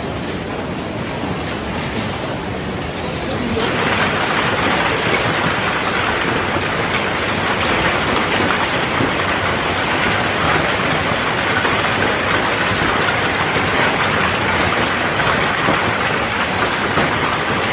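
Heavy storm downpour of rain and hail, a dense steady hiss of impacts that becomes louder about three and a half seconds in.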